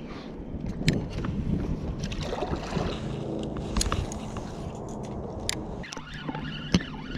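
Spinning reel being cranked to retrieve line from a kayak, with scattered sharp clicks and knocks from handling the rod and reel.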